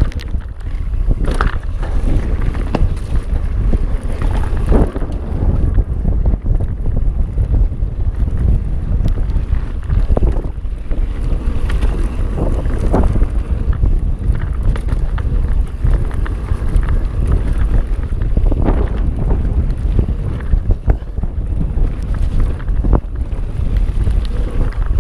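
Wind buffeting the microphone on a fast mountain-bike descent, over a steady low rumble of tyres on a dirt trail, with frequent knocks and rattles from the bike over bumps.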